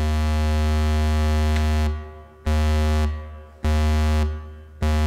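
Modular synthesizer oscillator gated through a VCA by a sequencer's gate output, playing wide, loud notes all at one low pitch. The first note is held for nearly two seconds, then shorter notes follow about every 1.2 s, each starting abruptly and fading quickly.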